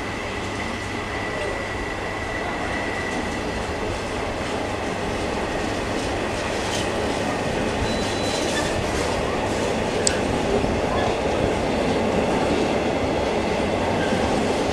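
Container freight train's loaded flat wagons rolling past, a steady noise of wheels on rails that grows slightly louder, with a faint high wheel squeal in the first few seconds.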